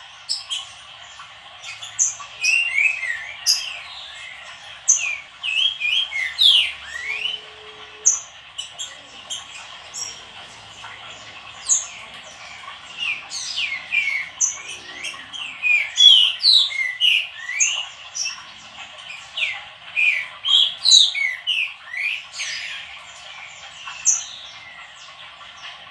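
Songbirds chirping and singing in quick, overlapping short phrases of sliding whistles, mixed with sharp high chips throughout.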